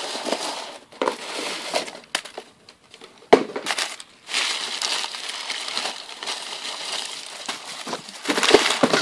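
Parcel packaging being handled and torn open by hand: cardboard and paper rustling and crinkling on and off, with one sharp snap a little over three seconds in.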